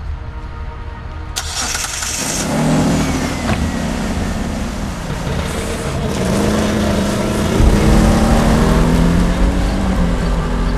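A Chrysler Sebring coupe's engine starts about a second and a half in, then runs and revs as the car pulls away, growing heavier and louder near the end.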